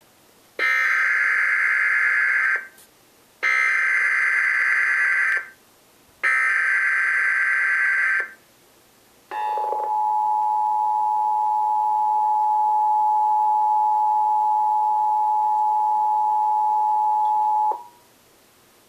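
Emergency Alert System tones for a Required Monthly Test: three identical two-second bursts of SAME header data, a screeching digital warble with short gaps between them. These are followed by the EAS two-tone attention signal, 853 and 960 Hz sounded together, held steady for about eight seconds before it cuts off.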